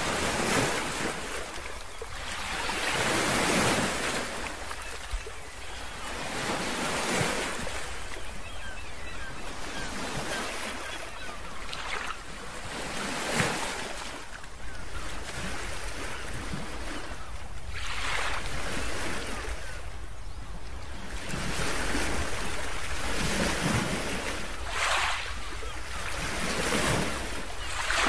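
Ocean surf: a rushing wash of waves that swells and fades every two to four seconds, over a steady low rumble.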